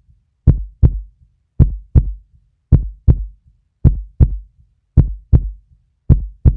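Heartbeat sound effect: a lub-dub double thump repeating steadily about once a second.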